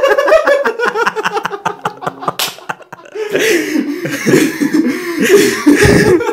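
People laughing in quick, breathy bursts, breaking off about two seconds in and starting up again a second later.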